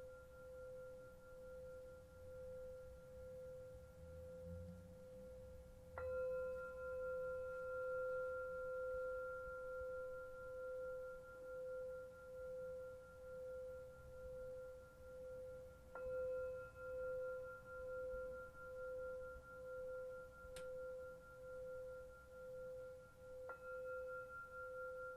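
Tibetan singing bowls struck and left ringing, a deep steady tone with higher overtones that wavers in a slow regular pulse. Fresh strikes come about six seconds in, again around sixteen seconds and near the end, and a single short click comes near the end.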